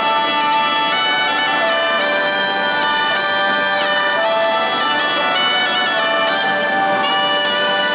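Zampogna (southern Italian bagpipe) and ciaramella (double-reed shawm) playing a melody together over the bagpipe's steady drones, with quick ornamental slides in the tune.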